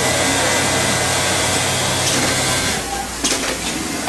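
Freight elevator doors sliding open: a steady motor whir with a hiss that cuts off about two and a half seconds in, then a single click.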